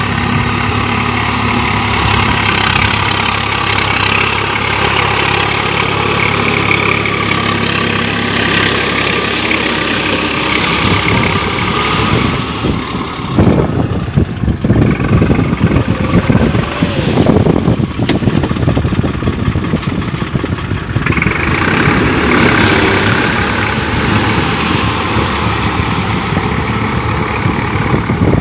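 Swaraj 855 FE tractor's three-cylinder diesel engine running steadily under load, driving a rotary tiller through flooded paddy mud. For several seconds in the middle the sound turns rough and uneven.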